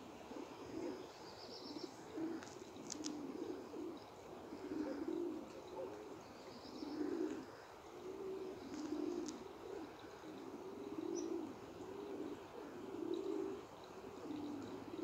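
Domestic pigeons cooing over and over, about one low coo a second, with a few brief high chirps.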